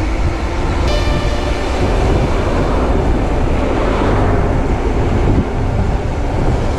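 Wind buffeting the microphone and tyre rumble of a mountain bike on a fast, steep descent. A thin high ringing joins in about a second in.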